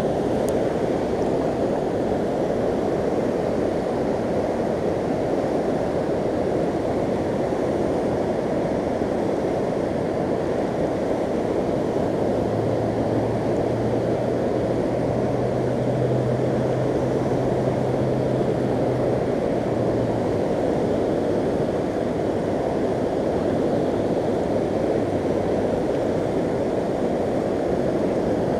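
Steady rushing of a flooded river, fast churning water running high and hard. A faint low steady hum joins in for several seconds in the middle.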